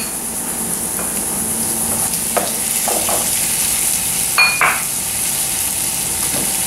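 Diced papaya and onion sizzling in hot oil in a frying pan, stirred with a slotted spatula, with a few knocks and one sharp ringing clink about four and a half seconds in.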